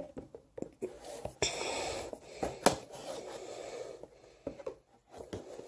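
Knife slitting the tape seals of a cardboard box, with rasping cuts and sharp clicks and scrapes of cardboard.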